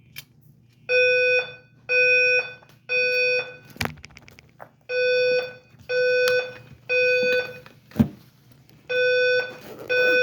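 Building fire alarm evacuation tone sounding in the temporal-three pattern: three half-second beeps, a pause, then three more, repeating. Two sharp knocks land between the groups, the second the loudest moment.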